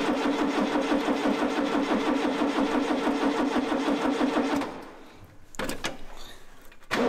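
Forklift engine cranking on its electric starter with the choke on, a rhythmic churning for about four and a half seconds without catching. After a brief pause come two shorter cranks near the end.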